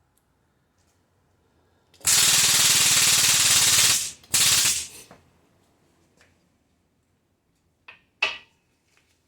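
Pneumatic impact tool hammering in two bursts, about two seconds and then half a second, on a stuck wheel-bearing race and hub. Two short metal knocks follow near the end.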